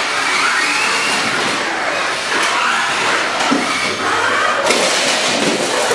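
Electric drive motors of small home-built combat robots running hard, with a steady noisy hum and the pitch sweeping up and down as they drive and push against each other.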